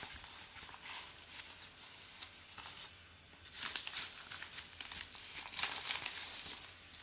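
Bubble mailer being opened by hand: crinkling, rustling plastic packaging and some tearing, busier and louder from about halfway through.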